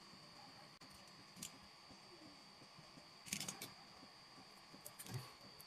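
Quiet crafting sounds: a few light clicks and scrapes as small popsicle-stick wood pieces and a metal pick are handled on a plywood board, the loudest cluster about three and a half seconds in. A faint steady high-pitched whine runs underneath.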